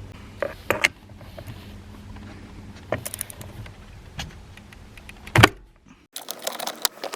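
Scattered metallic clicks and knocks of a hand tool working a steering-wheel airbag retaining bolt loose, with one sharp knock about five seconds in.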